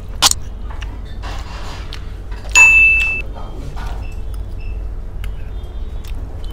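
A metal spoon clinking against a small glass bowl: a light tap just after the start, then one louder clink about two and a half seconds in that rings briefly and fades. A steady low hum runs underneath.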